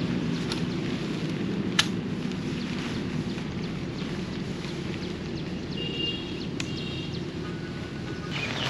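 A steady low mechanical hum, like a running vehicle engine. There is a sharp click about two seconds in, and a few short high chirps near the end.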